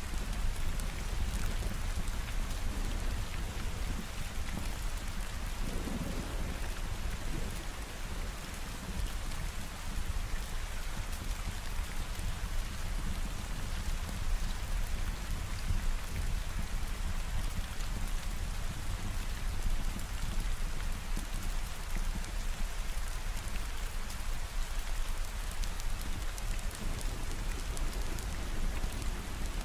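Steady rain falling, an even hiss with a constant low rumble beneath it.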